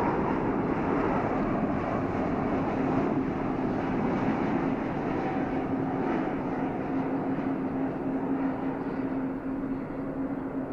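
Jet engines of a Boeing 777-300 airliner on final approach with landing gear down: a steady roar with a low steady hum, slowly fading toward the end.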